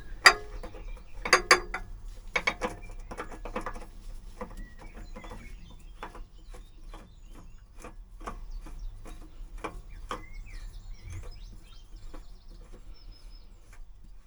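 Small clicks and knocks of a new Yanmar spin-on oil filter being screwed onto the engine by hand. A few louder knocks come at the start, then lighter clicks at about two a second that fade out near the end. Birds chirp faintly in the background.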